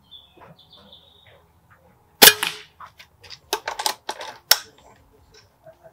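Walther Reign .177 pre-charged pneumatic air rifle firing one shot about two seconds in: a sharp crack with a short ring after it. About a second later comes a quick run of several sharp clicks.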